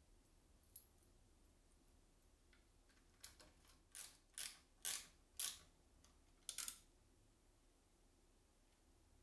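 Small metal bracket and screw clicking against the circular saw's blade guard as they are fitted by hand: a faint click, then a quick run of about seven sharp clicks in the middle, the loudest about five seconds in.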